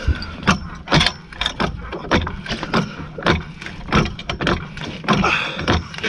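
Floor jack being pumped to raise a car, its handle and lift mechanism clunking about twice a second.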